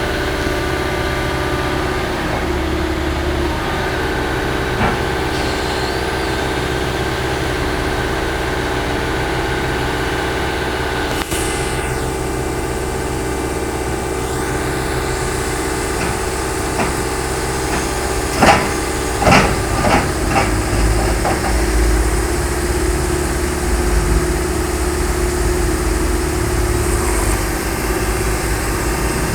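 Heavy diesel engine running steadily at idle. A cluster of four or five sharp knocks comes about two-thirds of the way through.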